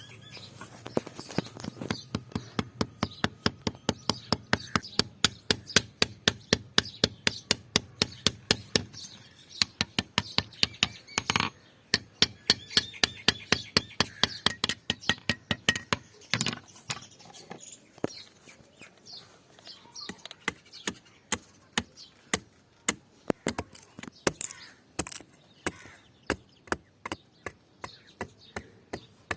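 Hammer blows struck in a steady rhythm, about three a second, on the workpiece at the blacksmith's bench, with brief pauses between runs.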